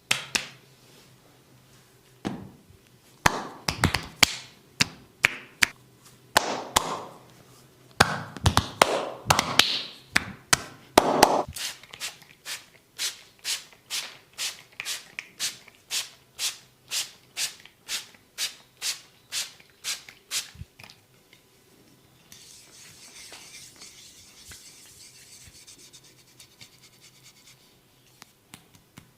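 Hands working on a person during a massage. First comes a run of irregular sharp slaps and taps. Then a steady rhythm of strikes follows, about two a second, for several seconds, and it stops about two-thirds of the way in. Near the end there are a few seconds of soft rubbing.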